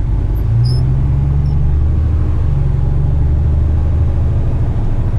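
Diesel engine of a heavy rigid tipper truck running at low road speed; the engine note rises slightly about half a second in, then holds steady.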